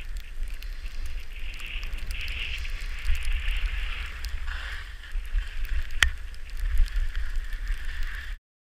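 Skis hissing and scraping over snow, heard from a camera on a moving skier, with wind rumbling on the microphone. Scattered light clicks and one sharp knock about six seconds in; the sound cuts out abruptly near the end.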